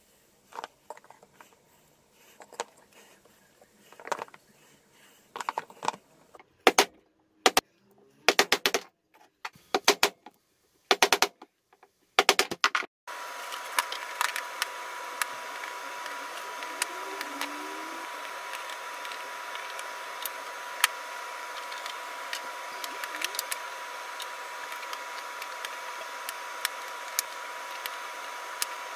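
Small peach-wood log slices clacking and knocking against each other and the board as they are set into place and fitted together, in quick clusters of sharp clicks. About halfway through, a steady hiss with a thin high hum comes in under lighter, scattered clicks.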